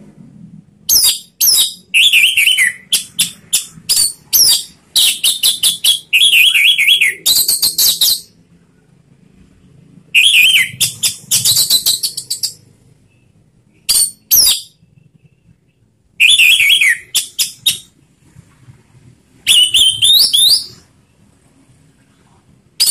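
Orange-headed thrush (anis merah) singing in full, loud voice: about eight short phrases of rapid high notes and falling whistles, each a second or two long, with pauses between them.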